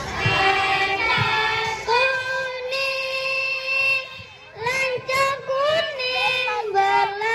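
A young child singing a song unaccompanied, holding long notes and sliding between pitches, with a short break for breath about four seconds in.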